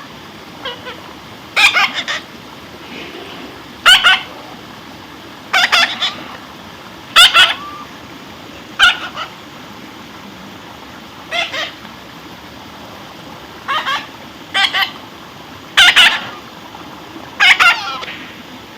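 A parrot calling with loud, harsh squawks, about one every two seconds, some as quick double calls.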